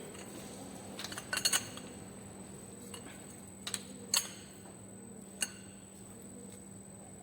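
Metal hand tools and engine parts clinking during engine work: a quick cluster of sharp metallic clinks about a second in, then single clinks around four and five seconds, over a steady hum.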